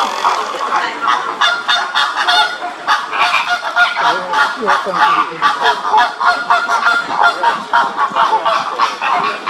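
Flock of water birds calling together: many short, overlapping calls, several a second, forming a dense chorus.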